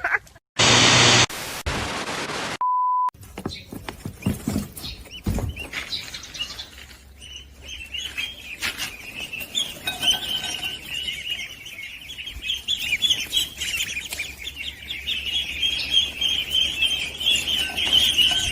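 Many small birds chirping together in a dense, continuous high-pitched chatter that builds from about seven seconds in. Near the start there is a brief loud burst of noise, then a short steady beep.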